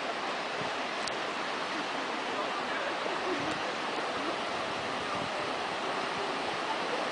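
Fast-flowing floodwater rushing: a steady, even rush of water noise.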